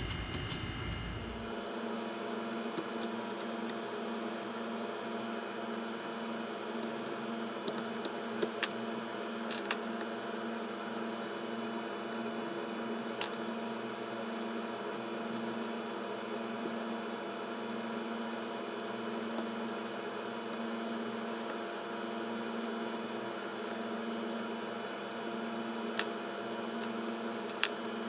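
Steady electrical hum with a faint hiss, and a few scattered sharp clicks and taps.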